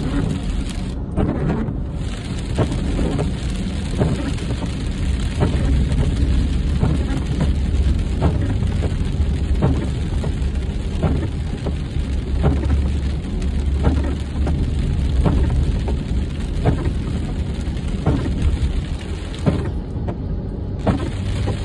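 Rain on a moving car, heard from inside the cabin: scattered sharp taps of drops hitting the windshield and roof over a steady low rumble of road and engine noise.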